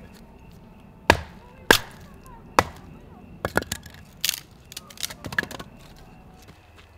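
Hatchet splitting firewood into kindling: three sharp chopping strikes in the first three seconds, then a run of lighter wooden knocks and clatters.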